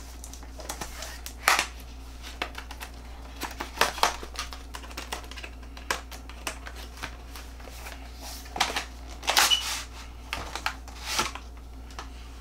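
Screen protector packaging being opened and its contents handled: irregular clicks, taps and rustles of cardboard and plastic, in a few clusters, over a steady low hum.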